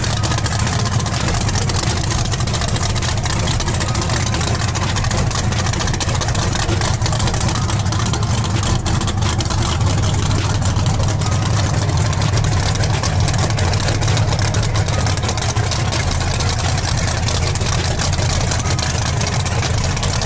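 Race engine of a pickup drag truck running at a steady idle, low-pitched and unchanging.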